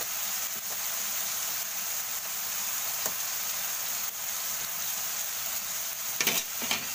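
Tomatoes, onions and garlic sizzling steadily in hot oil in a wok as they sauté. A couple of brief knocks come near the end.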